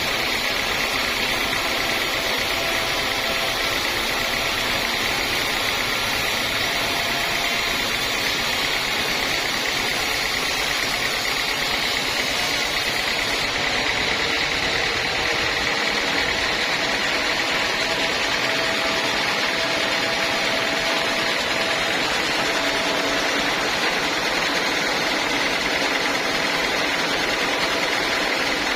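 Sawmill band saw running steadily, sawing through a teak log, with a constant high-pitched noise.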